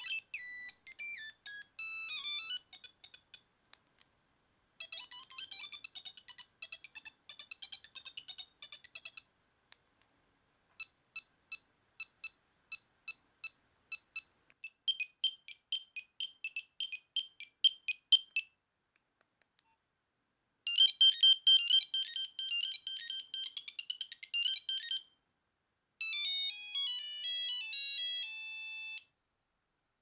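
Nokia 8310 mobile phone playing monophonic ringtone previews through its small speaker: five short, high-pitched beeping tunes in turn, each a different melody, separated by brief pauses as the next tone is selected in the ringtone menu.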